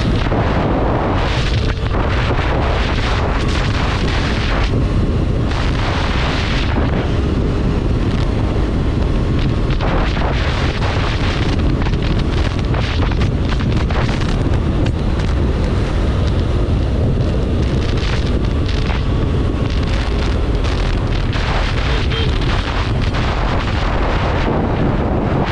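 Wind buffeting the microphone of a sport motorcycle at highway speed: a steady low rumble of wind, road and engine noise, with gusts that swell and fade every second or so.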